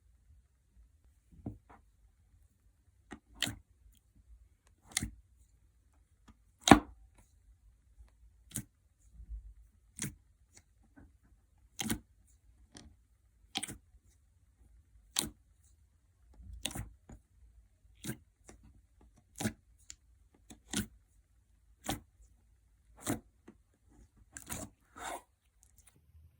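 Clear gel slime making short watery pops, about one every second and a half, the loudest about a quarter of the way in.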